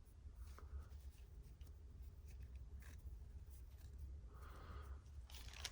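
Faint rustling and light ticks of trading cards being handled and slid against each other, over a low steady hum; the rustling gets louder near the end.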